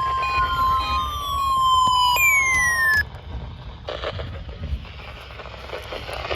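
NOAA Weather Radio warning alarm tone, a steady 1050 Hz beep, with a second tone gliding down in pitch over it. Both cut off abruptly with a click about three seconds in, leaving the receiver's static hiss, which grows louder near the end.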